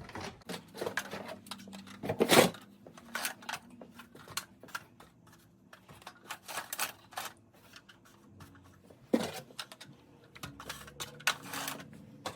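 Boxed fire alarm horn strobes being unpacked by hand: packaging rustling, with irregular clicks, taps and knocks. The loudest knock comes about two seconds in, another just after nine seconds.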